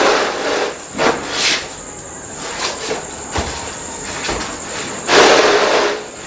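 Large sheet of plastic vinyl flooring rustling and swishing as it is spread and slid across a floor, with a few light knocks; the loudest, longest swish comes about five seconds in.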